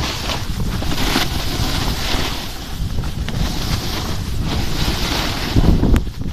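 Wind buffeting the microphone of a camera moving downhill with a snowboarder, a heavy gusting rumble that is loudest near the end. Over it, the snowboard's edges scrape across packed snow in swelling hisses as the rider turns.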